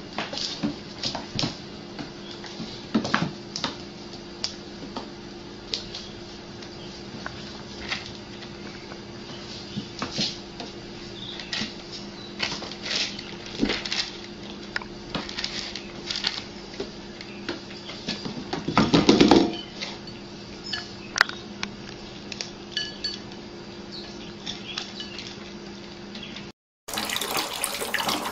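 Cats' dry-food bowls clinking and knocking on a tiled floor, many scattered clicks over a steady hum, with a louder clatter about two-thirds of the way through. Near the end it cuts to a tap running into a sink.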